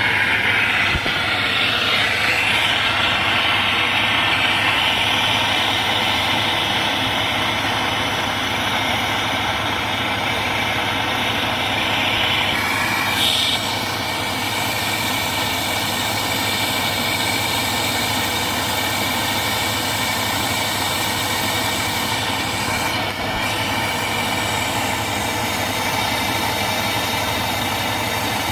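Brazing torch flame burning with a steady hiss, lit just before and held on copper pipe. It eases slightly about halfway through.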